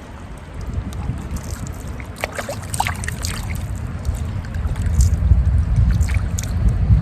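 Wind buffeting the microphone as a low rumble that grows stronger in the second half, with scattered light clicks and taps.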